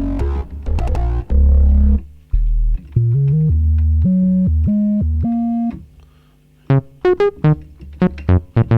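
Alesis Micron synthesizer playing a bass patch: a line of deep, held notes stepping up in pitch, then after a brief break about six seconds in, short staccato notes repeating at about three to four a second.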